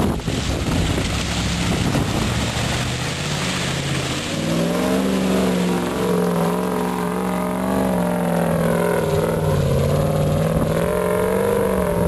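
Classic Range Rover's engine held at high revs as it ploughs through deep mud with its tyres spinning, throwing mud. A rushing noise at first, then from about halfway the engine's note stands out, wavering with the load and rising again near the end.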